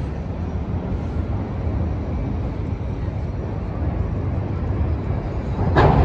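Steady low rumble of outdoor city background noise, with a short louder burst just before the end.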